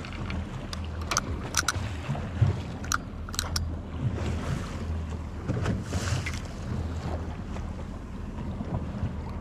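Twin Mercury Verado 300 V8 outboards idling with a steady low hum, under wind on the microphone and water against the hull. A handful of sharp clicks sound in the first few seconds.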